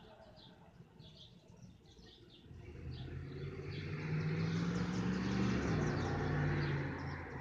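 Small birds chirping in the background, then a passing motor vehicle: a low engine hum and road noise swell up from about two and a half seconds in, hold, and begin to fade near the end.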